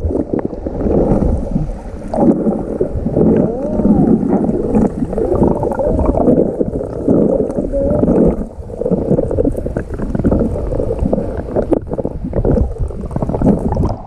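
Muffled sloshing and gurgling of stream water close to the microphone, as a swimmer moves through it, with a few muffled voice-like sounds mixed in.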